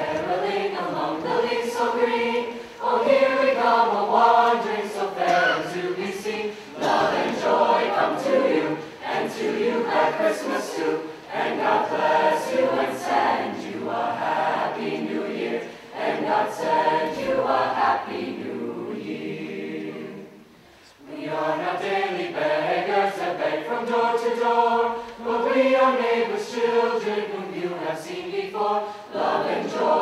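High school girls' choir singing, with a brief quiet pause about two-thirds of the way through before the singing resumes.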